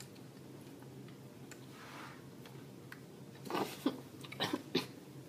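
A few crisp crunches between about three and a half and five seconds in: a mouthful of raw carrot being chewed. Before them there is only a faint steady room hum.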